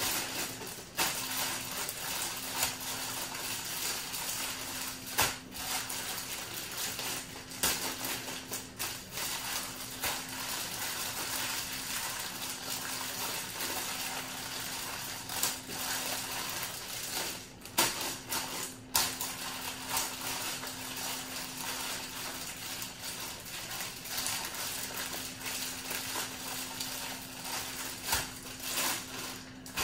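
Plastic zip-top storage bag crinkling and rustling continuously as marinated chicken wings are squeezed and massaged around inside it, with a steady low hum underneath.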